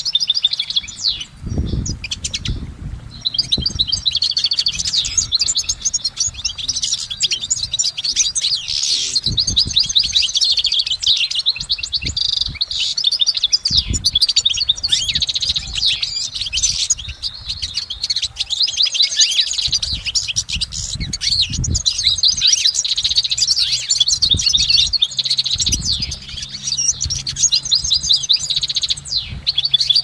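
European goldfinch singing a long, almost unbroken twittering song of rapid high notes, with a short pause about three seconds in. A few low thumps sound underneath.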